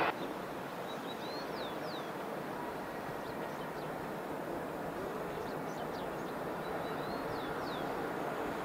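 Distant airliner on final approach, its jet engines a steady rush that grows slowly louder as it nears. Birds chirp over it, with two short runs of quick falling whistles near the start and near the end.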